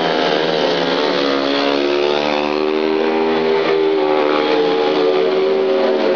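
Speedway motorcycle's 500 cc single-cylinder methanol engine running hard as the bike laps the track, its pitch dipping about half a second in, then climbing over the next few seconds and holding.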